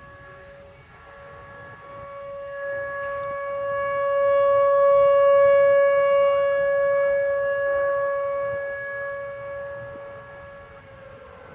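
Outdoor tornado warning sirens sounding a steady tone during a scheduled test. The main siren swells to its loudest around the middle and then fades, and a second siren sits slightly lower in pitch, sliding down a little near the end.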